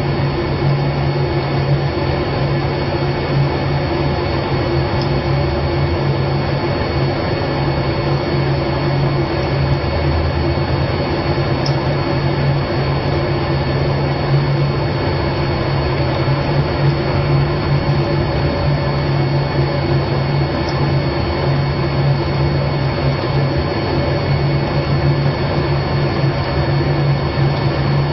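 A steady mechanical hum with a strong low drone, unchanging throughout.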